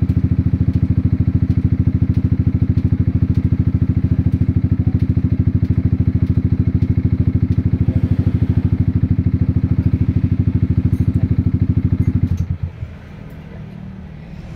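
Yamaha XMAX 250's single-cylinder four-stroke engine idling through an F2Racing big-volume aftermarket exhaust, with a steady, even pulse. The engine note cuts off abruptly about twelve seconds in.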